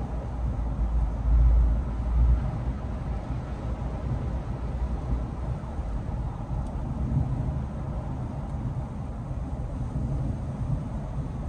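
Steady road noise of a car driving at highway speed, heard from inside the cabin: a low tyre-and-engine rumble with a faint hiss above it. The low rumble swells briefly about one and two seconds in.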